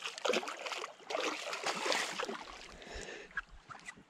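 Water splashing and lapping against the side of a canoe, with irregular small knocks.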